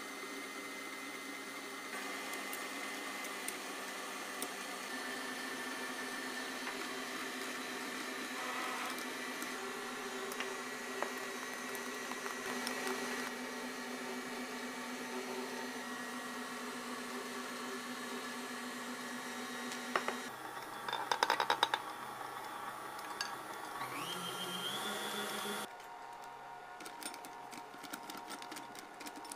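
Stand mixer motor running with a steady hum. About two-thirds of the way in there is a burst of clattering, then the hum rises in pitch and cuts off suddenly, leaving light ticks and taps.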